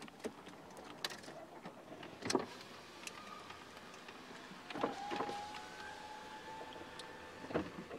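Power window motor whining inside a car cabin, a thin steady tone that starts about five seconds in and holds for nearly three seconds, rising slightly, with scattered clicks and knocks around it.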